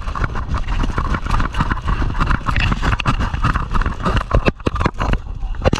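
Running footsteps with gear rattling and knocking against the body, a quick irregular patter of thuds and clatter over wind and handling rumble on the body-worn microphone.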